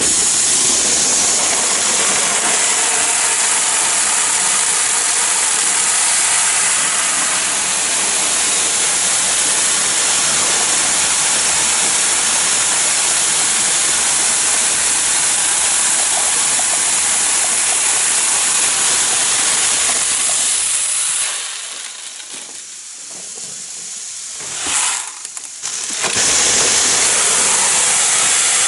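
Shelled corn pouring out of a feeder filler into a tub, a steady loud hiss of kernels. It drops off a little over two-thirds of the way through, briefly surges, then runs again at full flow.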